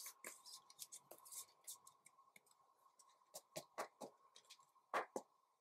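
Faint scrapes and light clicks of a plastic-sleeved trading card being slid into a clear rigid plastic card holder, with two slightly sharper clicks about five seconds in.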